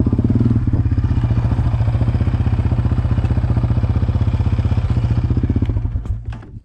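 Single-cylinder engine of a fuel-injected Yamaha Raptor ATV running steadily at low revs with an even pulsing beat, then switched off about six seconds in, dying away quickly.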